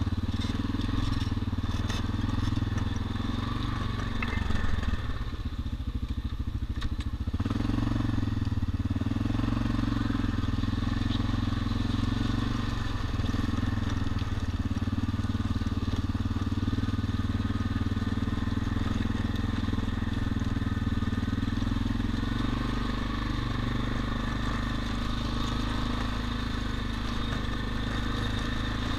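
ATV engine running steadily as the quad rolls slowly over a dry creek bed, its tyres crunching on loose gravel and rocks.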